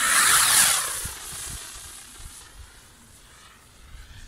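Small firework rocket launching: a loud hissing whoosh that peaks in the first second, then falls in pitch and fades over the next two seconds as the rocket climbs away.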